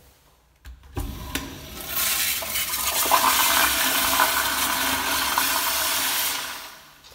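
2020 Sloan wall-hung toilet flushing through its flushometer valve: a click about a second in as the valve opens, then a loud rush of water that fades out about six seconds in.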